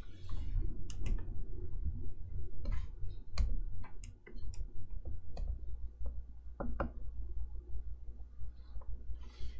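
Stylus tapping and sliding on the screen of an XP-Pen Artist 15.6 Pro pen display: scattered sharp taps, some in quick pairs, with a few soft scratchy strokes between them, over a low steady hum.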